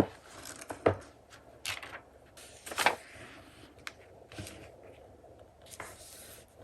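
Paper and cardstock being handled on a craft table: a few short rustles and taps, the sharpest near the start and about three seconds in, then softer rustling.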